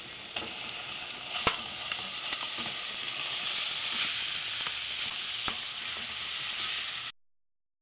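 Ground beef sizzling as it drops into hot oil with browned onion and garlic in an aluminium pot. A few sharp knocks from the wooden spoon come through the sizzle, which grows louder about three seconds in and then cuts off abruptly near the end.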